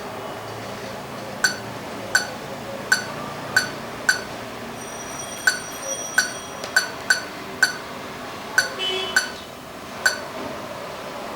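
Virtual laser projection keyboard giving a short electronic click-beep for each key tapped on its projected layout: about fifteen pings at an irregular typing pace, with a faint held high tone in the middle.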